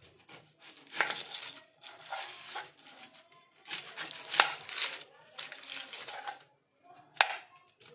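Kitchen knife peeling the dry, papery skin off red onions on a wooden chopping board: a series of rustling, scraping strokes, each about a second long, with a few sharp knife taps on the board, the loudest about four and a half and seven seconds in.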